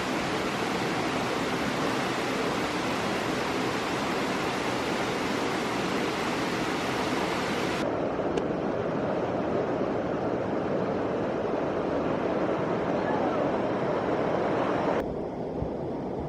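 Steady rushing of a forest stream's running water. Its bright hiss cuts away abruptly twice, about eight seconds in and again near the end, leaving a duller, lower rush.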